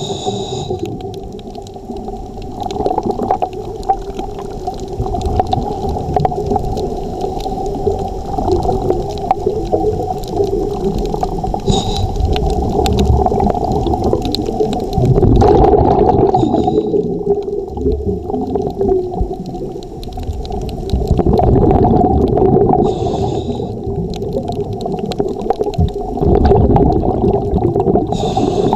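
Underwater ambience: a muffled, steady rumble with a scuba diver's exhaled regulator bubbles gurgling, swelling louder every five or six seconds.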